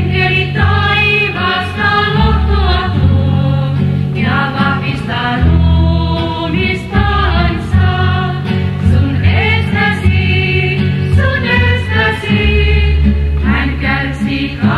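Christian song with singing voices, choir-like, over held low bass notes of an instrumental accompaniment.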